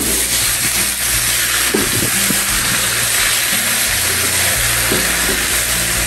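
Sliced beef and onions sizzling in a hot wok over a gas burner, stirred with a wooden spatula that scrapes against the wok a few times. Background music plays underneath.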